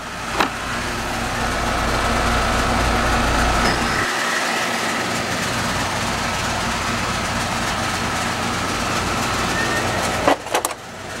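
Steady running noise of a 5-ton R-410A air-conditioning condensing unit during a refrigerant charge check, with a faint steady high tone over it. Its deep hum drops away about four seconds in, and a few sharp knocks sound near the end.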